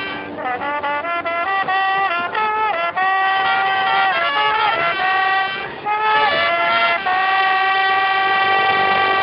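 High school marching band playing, brass carrying a melody of sustained notes that move step by step, then settling on one long held note from about seven seconds in.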